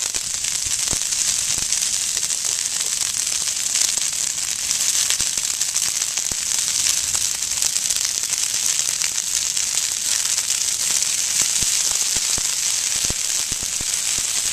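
Brush fire burning through grass clumps and shrubs, crackling and popping steadily, a dense hiss of many small pops.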